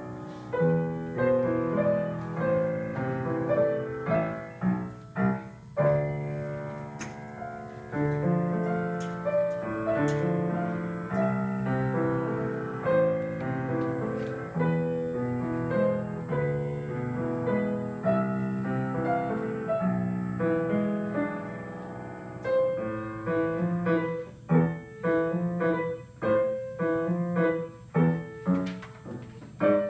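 Grand piano played as a duet by two players sharing the keyboard: a flowing piece of sustained chords and melody, which turns to short, detached chords about three-quarters of the way through.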